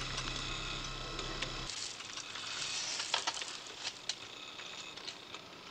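Steady electronic hum, a low drone with several held higher tones, that cuts off abruptly about a second and a half in. After it comes a faint crackly hiss with a few soft clicks.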